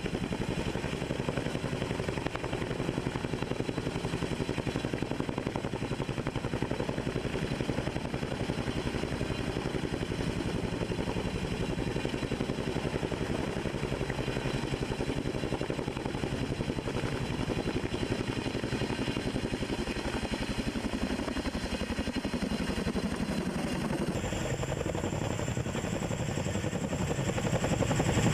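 Boeing CH-47 Chinook tandem-rotor helicopter hovering under a heavy sling load: steady fast rotor chop over turbine noise. Near the end the sound changes and a thin high whine joins in.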